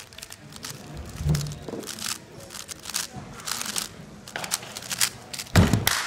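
A 3x3 speedcube being turned very fast in a speed-solve, giving a quick run of clicks and clacks as the layers snap round. About five and a half seconds in, a loud slap of the hands coming down on the competition timer stops the solve.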